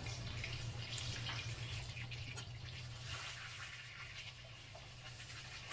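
Crumb-coated chicken strips frying in hot oil in a skillet: a steady sizzle with small scattered crackles, over a low steady hum.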